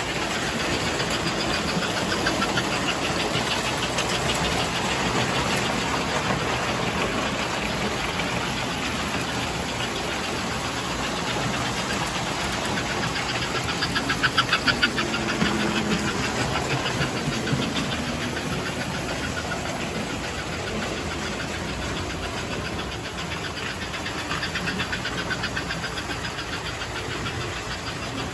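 O gauge toy trains with steam locomotives running on three-rail track: a steady whirr of electric motors and gears with fast clicking of wheels over the rails, louder and pulsing for a couple of seconds about halfway through.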